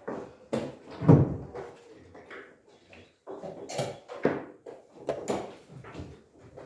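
Irregular series of short knocks and clatters, about a dozen in a few seconds, the loudest about a second in.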